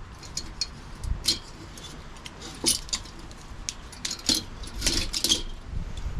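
Light metallic clicks and clinks as small scrap-metal parts and hand tools are handled, in a few scattered clusters.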